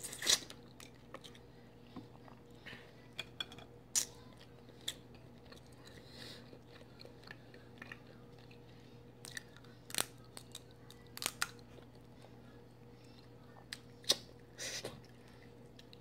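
Dungeness crab shells being picked apart by hand and sucked on while eating: scattered sharp cracks and clicks of shell, with chewing. A faint steady hum lies underneath.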